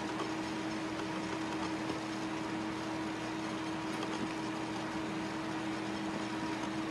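A steady machine hum: one constant low tone over a faint even hiss, unchanging throughout.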